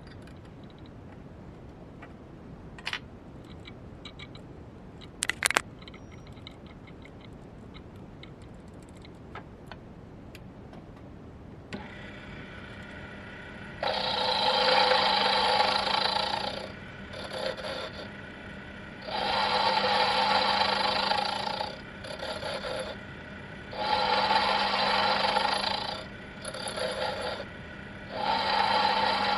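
Proxxon PD 250/E mini lathe switched on about twelve seconds in and running with a steady hum, then an indexable-tip tool cutting the spinning stainless steel bolt in repeated passes: four loud scraping cuts of two to three seconds each, with a ringing pitch, and shorter quieter cuts between them. Before the lathe starts, two sharp clicks of a key on the toolpost.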